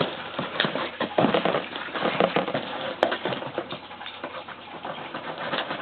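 A package being handled and opened by hand: irregular rustling, crinkling and scraping with sharp little clicks and knocks.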